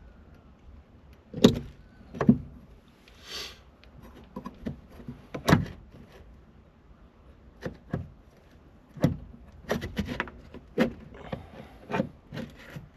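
Irregular sharp clicks and knocks of metal and plastic as hands and a tool work at the retaining clip on a car's accelerator pedal, trying to pry it off. There are about a dozen knocks at uneven spacing, with a brief hiss a few seconds in.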